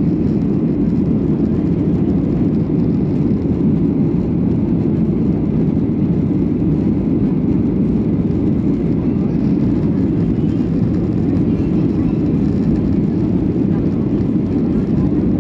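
Steady cabin noise inside a Boeing 737-800 climbing out after takeoff: the CFM56-7B turbofans and the rush of air over the fuselage make a dense, even rumble that does not change.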